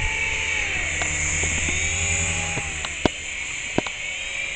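Syma S107 micro coaxial RC helicopter's small electric motors and rotors whining in flight, the pitch rising and falling as the throttle is worked, on a battery that is nearly flat. A few sharp clicks come in the second half.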